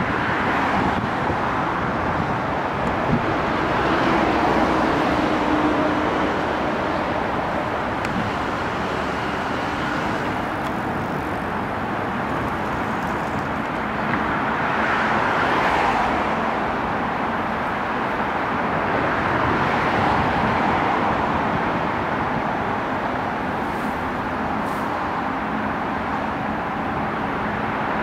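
Distant city traffic noise heard across the river: a steady roar that swells and eases several times, with no sharp events.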